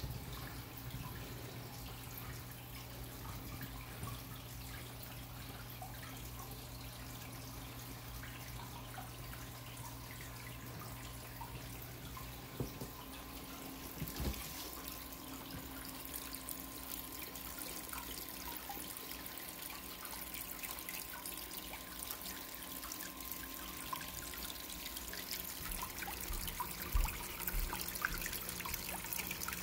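Water trickling and dripping in a planted aquarium's circulation system, over a low steady hum that drops away about twelve seconds in.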